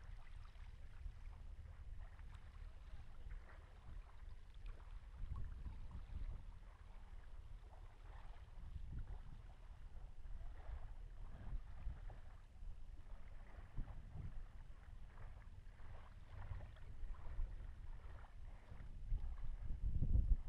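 Wind rumbling on the camera microphone, swelling and fading, with faint irregular scuffs on top.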